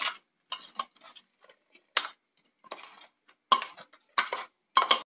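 Steel spoon scraping and clinking against a stainless-steel mixer-grinder jar as thick, dry ground coconut chutney is scooped out; about seven short, irregular clinks and scrapes.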